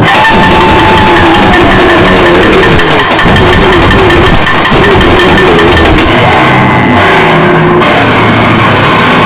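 Harsh noise music: a dense, distorted wall of noise at full volume, with wavering feedback-like tones running through it and a shift in texture about six seconds in.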